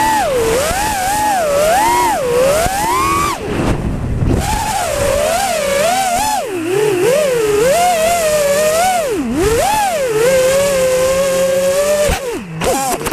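FPV racing quadcopter's electric motors and propellers whining, heard from the onboard camera, the pitch rising and falling constantly with the throttle. The whine drops out briefly about three and a half seconds in. Near the end it dips sharply and breaks up as the quad comes down into the grass.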